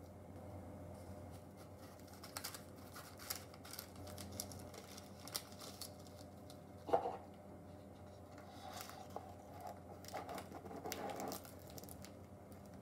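Quiet handling sounds of packing a small cardboard gift box: parchment paper rustling and crinkling, with light taps and clicks of the box on a steel countertop and one sharper knock about seven seconds in. A faint low hum runs underneath.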